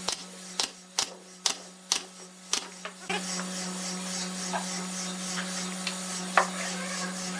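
Woodworking hand-tool work: six sharp taps about half a second apart, then a steady scraping noise with a few lighter knocks, over a constant low hum.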